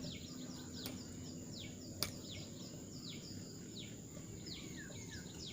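Birds chirping, a run of quick calls that each sweep downward, over a steady high tone and low outdoor background noise. A single sharp click about two seconds in.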